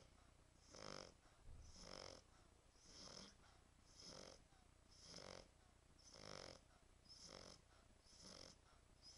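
French bulldog snoring faintly, one snore with each breath at an even pace of about one a second. The snoring is typical of the breed's short, flat-faced airway.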